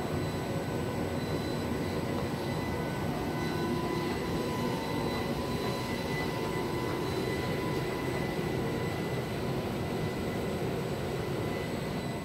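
A 1000 Hz pulsed plasma electrolytic oxidation (microarc oxidation) setup running: a steady high whine at 1 kHz, with fainter overtones above it, over a continuous low rushing noise.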